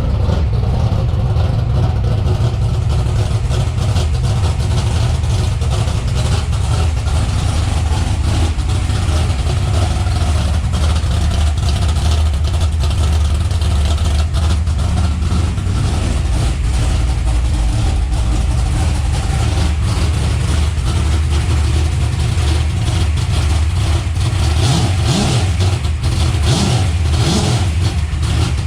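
Chevrolet S10 pickup engine running through a new X-pipe and Dynomax mufflers, a steady, loud exhaust rumble at idle. Near the end it rises briefly a couple of times with light revs.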